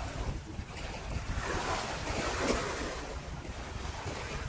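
Wind buffeting the microphone over sea waves washing against a rocky shore, one wave swelling up and washing in about halfway through.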